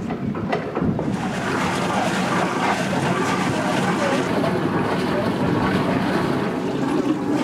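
Passenger boat's engine running steadily, heard from the open deck, with wind on the microphone. A couple of knocks in the first second.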